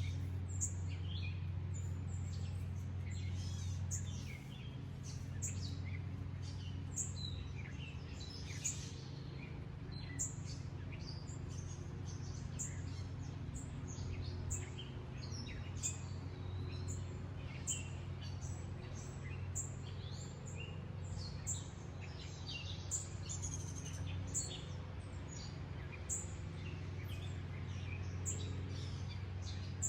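Songbirds chirping and calling, many short high chirps at irregular intervals, over a steady low hum.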